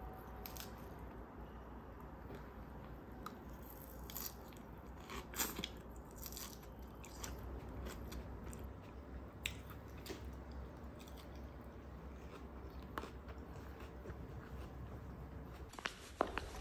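Crunching bites and chewing of a shredded-lettuce salad, with light clicks of a metal fork against a clear plastic bowl, heard as scattered short sharp sounds. Near the end, a quicker run of light clicks from footsteps takes over.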